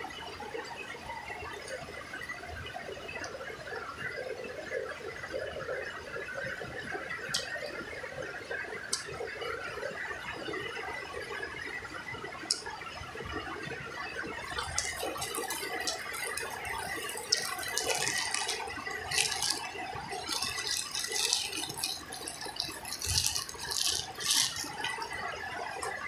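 Steady rain falling on the roof, a constant pattering hiss. About halfway through, dense irregular crackling and crunching noises come and go over it for several seconds.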